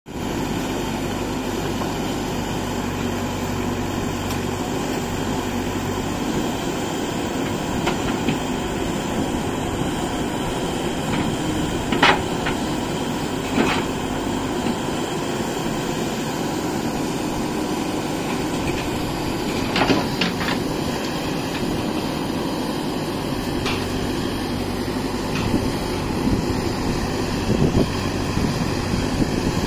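JCB backhoe loader's diesel engine running steadily under hydraulic load as the backhoe arm digs, with a few sharp knocks, the loudest about twelve seconds in.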